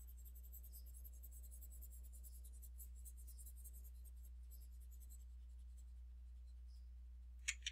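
Faint scratching of a stylus dragged across a pen tablet while erasing handwritten working, over a steady low electrical hum. Two light clicks near the end.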